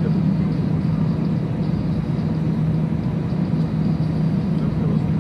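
Airliner cabin noise on the ground, heard from a window seat: the jet engines at idle and the cabin air system giving a steady drone with a constant low hum.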